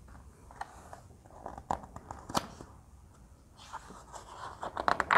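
A page of a hardcover picture book being turned by hand: a few soft taps and crinkles, then a denser paper rustle, loudest near the end, as the page flips over.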